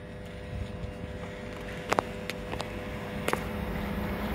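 Low rumble of an approaching GWR Intercity Express Train building slowly under a steady hum, with a few sharp clicks about two seconds in and again a second or so later.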